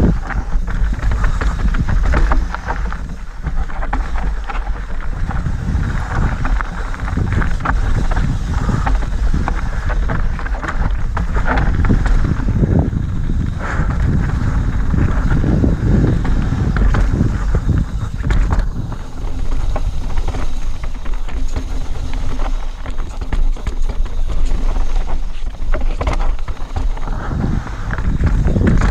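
Wind noise on the action camera's microphone, with mountain bike tyres running over dirt and loose stones and the bike rattling and clattering over roots and rocks during a fast downhill trail descent. Many short knocks and clicks sit on top of the continuous rush.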